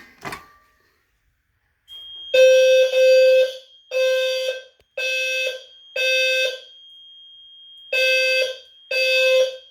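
A couple of sharp clicks as the Notifier NBG-10 pull station is pulled. About two seconds later a System Sensor P2RH-LF low-frequency sounder starts beeping a loud 520 Hz tone in the temporal-3 evacuation pattern: half-second beeps in threes, with a longer pause between groups. A steady high-pitched tone sounds faintly underneath.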